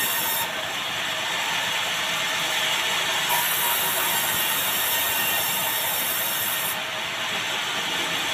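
Sawmill band saw running and sawing meranti boards, a continuous dense mechanical noise with rattling from the machine and its feed rollers. The highest hiss drops back twice, for about three seconds each time.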